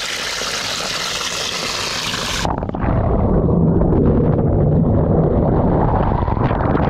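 A stream of water gushing into a plastic bucket. About two and a half seconds in, the hiss cuts off and it turns to a loud, muffled rumble, heard from under the water in the bucket.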